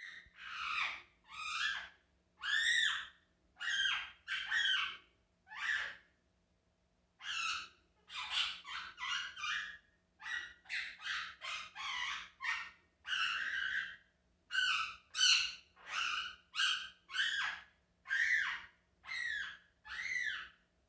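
Quaker parrot (monk parakeet) giving a long series of short, harsh calls, about two a second, each sliding in pitch. The calls stop for a second or so about six seconds in, then resume.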